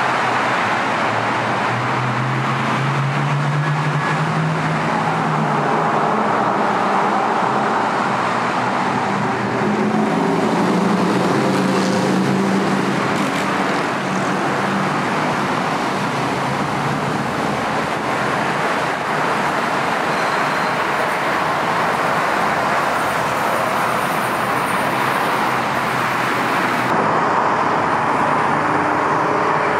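Steady freeway traffic noise, with the low engine note of passing heavy vehicles rising in pitch a few seconds in.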